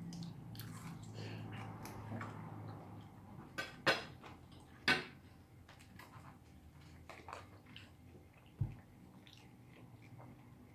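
Cutlery clinking and scraping on plates during a meal, with two louder clinks about four and five seconds in and a dull thump a few seconds later.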